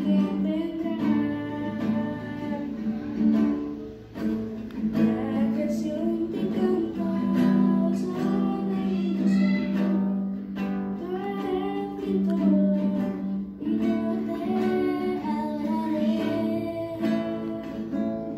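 Acoustic guitar played continuously, chords strummed and picked as song accompaniment.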